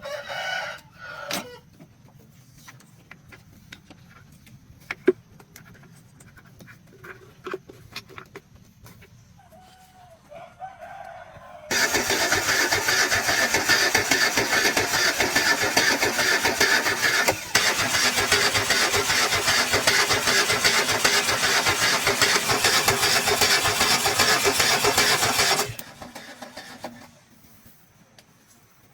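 A rooster crows briefly at the start. About twelve seconds in, a loud mechanical noise starts up. It runs for about fourteen seconds with a short break in the middle, then cuts off suddenly.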